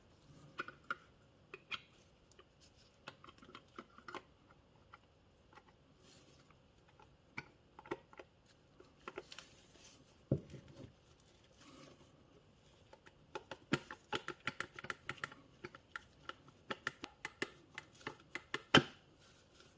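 Scattered light clicks and taps of small metal motor parts and tools being handled during reassembly of an e-bike mid-drive motor, with a quick run of clicks in the last third and two sharper knocks, one about halfway and one near the end.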